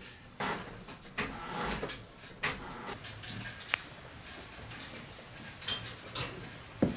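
Faint knocks, creaks and shuffling as a tube-frame buggy chassis is pushed and rocked on its coil-over suspension, with a brief metallic ping a little under four seconds in and a thump near the end.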